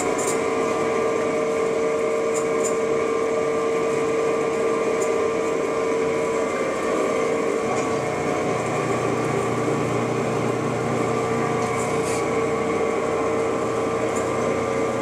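DoAll V60 vertical band saw running with a steady whine while its hydraulic parts feed is operated; a lower hum joins about halfway through, with a few faint clicks.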